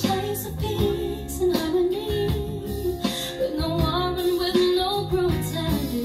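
A woman singing a slow ballad with long held notes, accompanied by acoustic guitar and piano.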